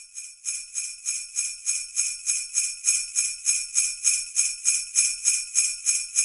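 Sleigh bells shaken in a steady rhythm, about three to four shakes a second, growing louder over the first two seconds and then holding steady.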